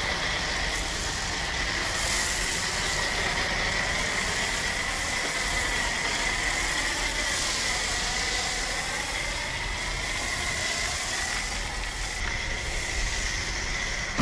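Shop vacuum running steadily with a high motor whine, sucking up loose powdered foam insulation in a boat's engine compartment.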